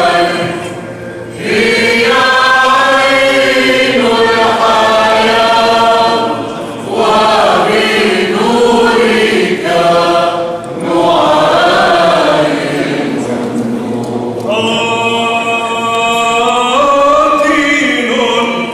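Byzantine liturgical chant sung during an ordination service: voices holding long, sustained notes in phrases several seconds long, with short breaks between phrases.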